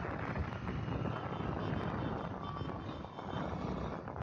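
Motorcycle running at road speed, its engine mixed with a steady rush of wind and road noise.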